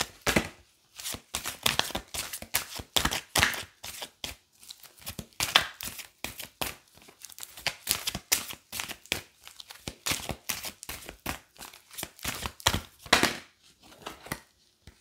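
Deck of tarot or oracle cards being shuffled and handled by hand: a continuous run of irregular papery rustles and quick taps.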